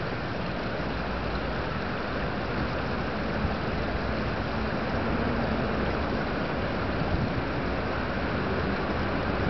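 Steady rushing noise of moving water and wind, even and unbroken, with no distinct events.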